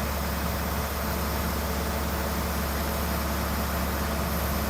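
A heavy vehicle engine running steadily at an even speed, a constant low hum.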